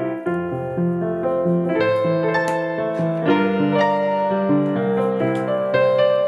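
Background piano music, a gentle melody of held notes.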